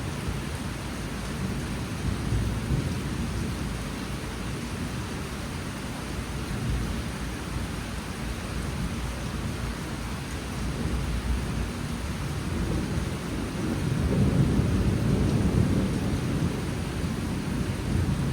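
Monsoon rain falling steadily, with a low rumble that swells about two-thirds of the way through.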